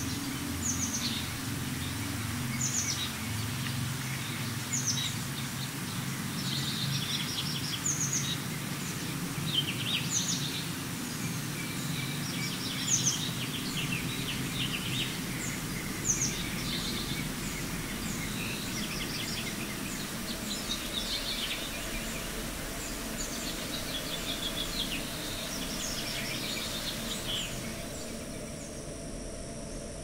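Birds calling outdoors: short, repeated, falling notes every second or two over steady low background noise. The calls stop shortly before the end.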